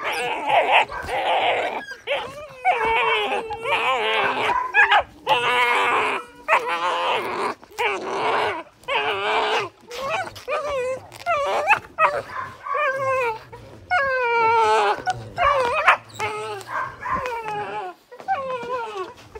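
Belgian Malinois puppies yelping and whining over and over, short wavering high-pitched calls in quick succession, as they play-bite and tug at clothing.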